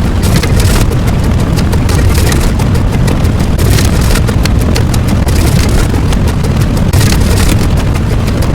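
Loud, steady noise sound effect with no clear pitch or tune, like a dense rumbling rush; it cuts off suddenly at the end.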